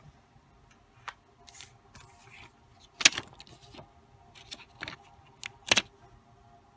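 Small plastic gems clicking and tapping as fingers handle them, with a few soft rustles in between. Six or so sharp little clicks, the loudest about three seconds in and another near the end.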